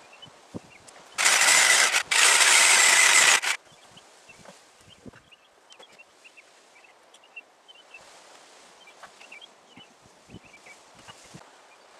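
Power saw cutting lumber in two short runs, about a second and about a second and a half long, with a brief break between. Faint knocks and small high chirps follow.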